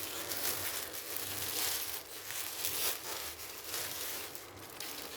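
Plastic parcel packaging crinkling and rustling in irregular bursts as it is handled and opened.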